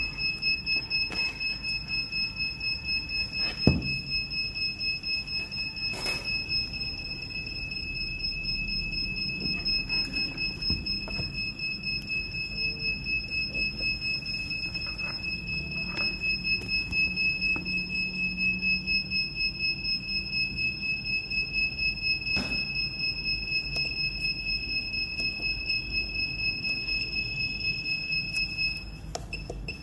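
A steady high-pitched electronic tone, pulsing rapidly at about two to three beats a second, with a few light clicks from handling the equipment. The tone cuts off just before the end.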